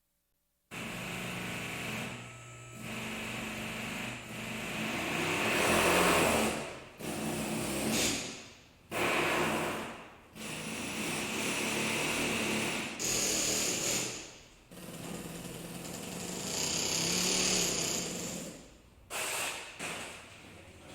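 Power-tool or machine noise, starting suddenly about a second in and running in uneven bursts of a few seconds with short gaps, some bursts with a high whine.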